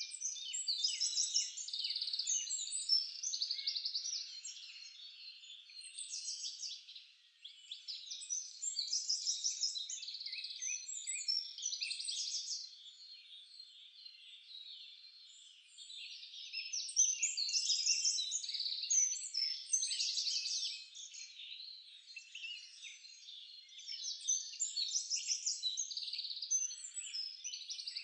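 Many small birds singing and chirping at once: a dense chorus of short high chirps and trills that swells and fades every few seconds.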